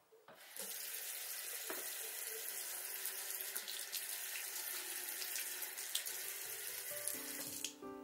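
Single-lever bathroom mixer tap lifted open, then water running steadily from the tap into the sink. The water stops abruptly near the end.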